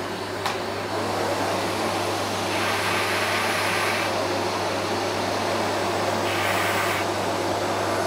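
Philips PowerPro Compact bagless canister vacuum cleaner with a 1900 W motor running at full suction, a steady rush of air over a low hum, just up to speed. Its hiss grows louder twice, about two and a half seconds in and again near six seconds, with a single click about half a second in.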